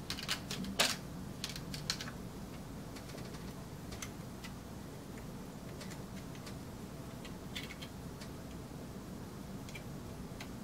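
Small sharp clicks and rattles of 35mm film and the plastic AP Bobinquick-135 film loader being handled, bunched in the first two seconds with the loudest just under a second in, then a few faint scattered ticks. A steady low hum runs underneath.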